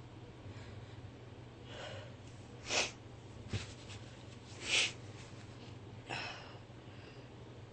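A person sneezing twice, about two seconds apart, with a breath drawn in before the first sneeze and a softer breathy sound near the end, part of a sneezing fit that keeps going.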